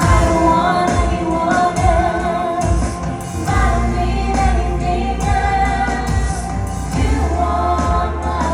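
Live worship music: a band playing while singers hold long notes over a steady bass.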